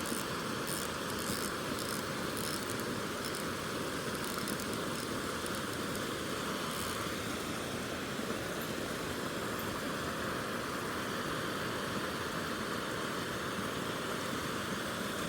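Mountain stream water rushing steadily into a small pool, an even continuous rush with faint high ticking in the first few seconds.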